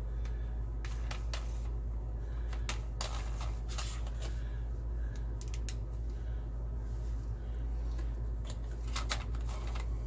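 Black plastic drain tailpiece and nut being worked and hand-threaded onto a porcelain sink's drain outlet: irregular light clicks and short scrapes of plastic, over a steady low hum.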